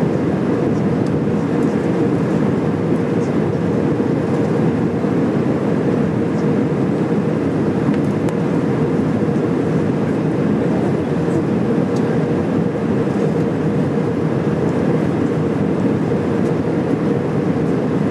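Steady cabin noise inside an Airbus A320-211 on approach, heard from a window seat beside the wing: the CFM56 turbofan engines and the rush of air over the fuselage, with a steady hum running under it.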